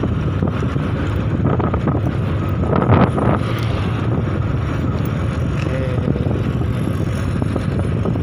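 Motorcycle engine running steadily while the bike rides along, with wind buffeting the microphone. A brief louder knock comes about three seconds in.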